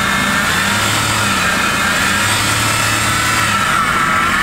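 2010 Dodge Grand Caravan minivan engine running, a steady low hum under a higher whine that dips in pitch near the end and rises again.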